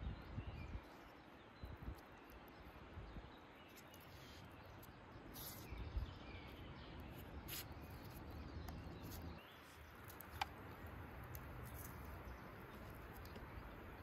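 Faint outdoor ambience: a low rumble with scattered light clicks and a few faint bird chirps.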